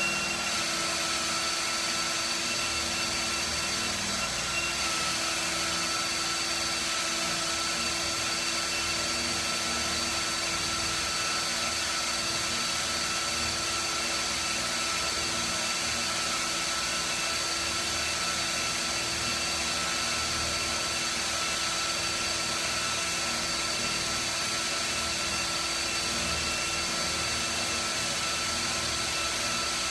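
Cordless DeWalt drill running steadily at medium speed with light feed pressure, its quarter-inch bit cutting through half-inch steel and throwing chips. The sound is a steady whine at several fixed pitches over a hiss.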